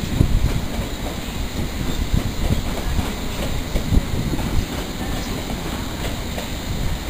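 London Underground train running slowly past at a platform, a steady low rumble with irregular clacks from the wheels over the rail joints.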